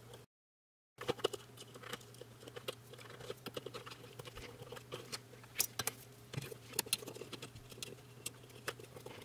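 Small screwdriver working the screw terminals of plastic relay sockets: irregular light clicks and scrapes of metal on metal as the screws are turned down on ferrule-crimped wires, with wires being handled.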